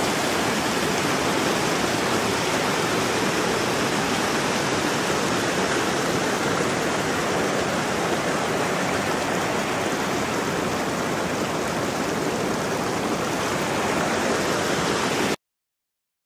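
Steady rushing of river water, an even hiss with no rhythm, cutting off abruptly near the end.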